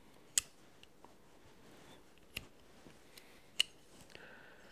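Sharp metal clicks from the fold-out tools of an all-metal multi-purpose pliers-hammer being folded and opened: three distinct clicks, the first and loudest about half a second in, then two more a second or so apart, with a few fainter ticks between.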